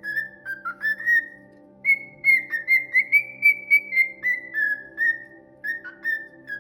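A songbird singing a run of clear whistled notes, about three a second, in phrases broken by short pauses.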